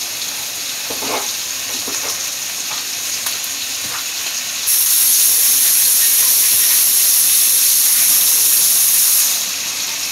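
Boneless ribeye steak sizzling as it fries in butter in a pan. About halfway through, a louder, steady high hiss comes in and cuts off abruptly after about four and a half seconds.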